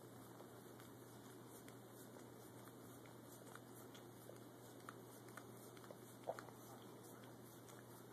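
Faint licking and biting of a small dog at a frozen ice pop: a scatter of soft sharp clicks and smacks, the loudest about six seconds in, over a steady low hum.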